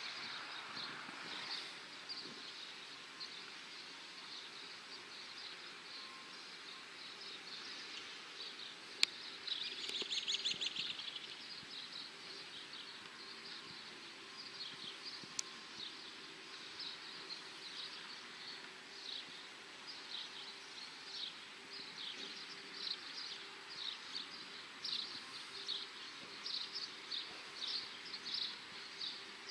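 Outdoor ambience of small birds chirping: short, irregular high chirps throughout, more frequent towards the end, with one louder, longer call about ten seconds in. A faint steady low hum runs underneath.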